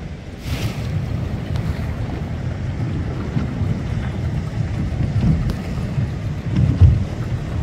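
Wind buffeting the microphone at open sea, a low, uneven noise that swells in gusts, strongest a little before the end.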